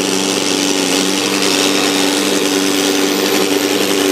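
John Deere pulling tractor's diesel engine running hard under load at a steady pitch as it drags the weight sled down the track, pouring out black smoke.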